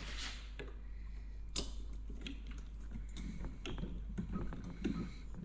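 Screwdriver tightening the screws that hold the blower motor and its new gasket onto an Airtronic D2 diesel heater. Light, scattered metal clicks and scrapes, with one sharper click about a second and a half in, over a faint low hum.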